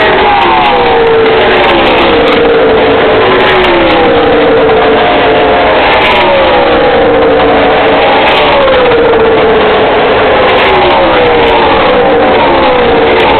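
NASCAR stock cars' V8 engines at racing speed, loud and continuous, as cars pass one after another, each engine's pitch falling as it goes by.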